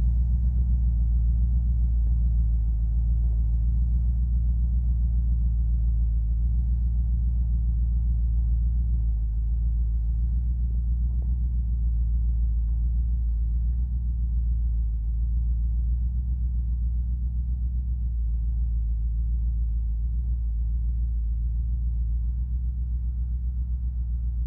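Old pickup truck's engine idling steadily as the driverless truck creeps along in gear through snow, a deep even rumble that grows slightly fainter as it moves away.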